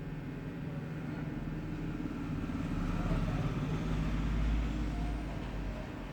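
A motor vehicle passing by: a low engine rumble that swells to a peak about four seconds in and then fades.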